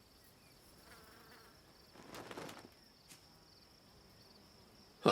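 Faint forest ambience of a steady, high insect buzz, with a soft brief swish about two seconds in and a small click a second later. Right at the end a loud pitched sound falls in pitch.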